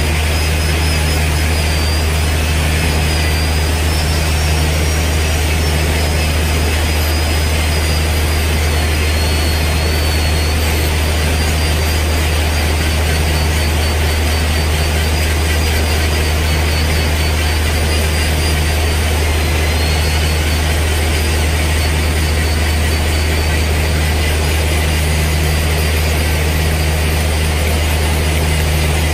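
Handheld electric angle grinder running continuously, its cup-shaped grinding head sharpening the carbide buttons of a borewell button drill bit: a gritty grinding hiss with a high motor whine that dips and recovers as it is pressed onto the buttons, over a steady low drone.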